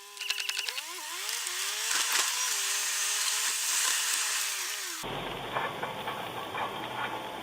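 Metallic scraping squeal from a VW Scirocco R's brake, caused by a stone caught in the brake caliper. It starts as rapid ticking, then becomes a squeal that slides up and down in pitch; from about five seconds in it drops to fainter, scattered clicks over road noise.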